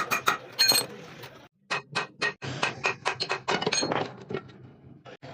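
Metal gearbox parts and tools clinking and knocking together in quick, irregular clicks, some with a brief metallic ring.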